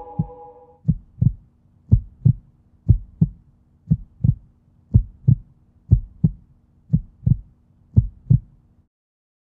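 Heartbeat sound: paired low thumps, lub-dub, about once a second over a faint steady hum, cutting off just before the end.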